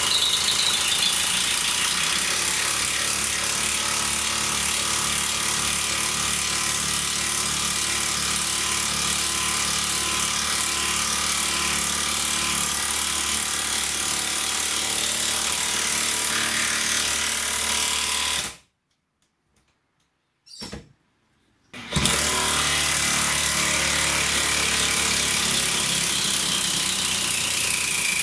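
Makita 40V XGT cordless impact tool hammering continuously on its high-torque setting as it drives a long lag screw into timber through a pilot hole. The sound cuts out for about three seconds two-thirds of the way through, then the hammering resumes.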